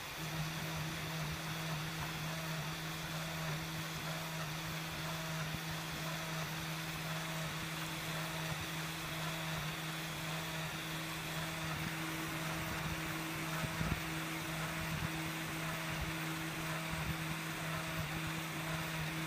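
UP Plus 2 3D printer running as it prints: a steady motor hum and fan whir, with a fainter higher tone pulsing regularly as the extruder head moves back and forth laying down a grid of filament.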